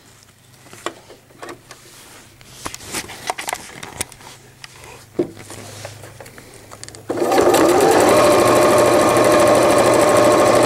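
Scattered light clicks and fabric rustles as PUL and a zipper are positioned under the zipper foot, then about seven seconds in a computerized sewing machine starts stitching and runs steadily at speed for a few seconds, stopping near the end.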